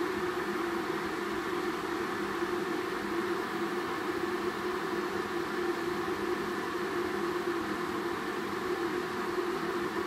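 Philips stainless-steel electric kettle heating water, a steady hissing rumble that stays even throughout.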